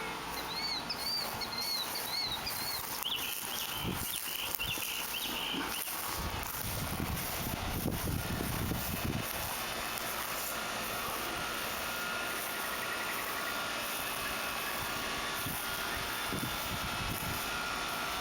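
Birds chirping during the first several seconds over a steady outdoor background of hiss and low rumble.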